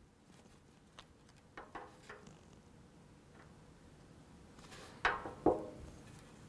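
Quiet handling of small antenna parts and a tube of Loctite threadlocker on a wooden workbench: a few faint clicks and rustles, with two louder brief sounds about five seconds in.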